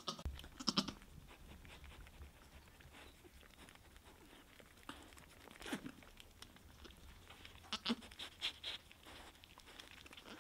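Nigerian Dwarf goat doe licking and nuzzling her newborn kid clean: soft, short wet licking and smacking sounds scattered through, louder ones about a second in and again around two-thirds of the way, with a few low murmurs from the doe.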